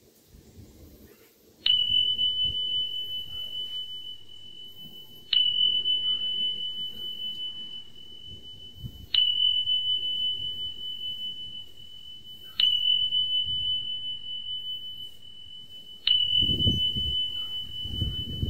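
A high, pure bell-like tone struck five times at even intervals of about three and a half seconds, each strike ringing on and fading slowly. Some low rumbling comes in near the end.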